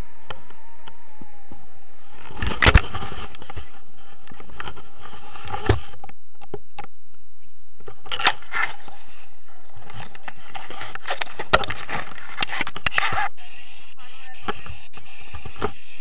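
Handling noise on a handheld action camera on a stick: sharp knocks and scrapes about three, six and eight seconds in and again around eleven to thirteen seconds, over a steady hiss.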